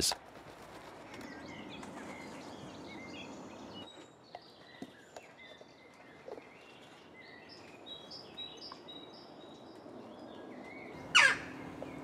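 Small birds chirping and whistling faintly in the background, then one loud, short call falling in pitch near the end from a western jackdaw.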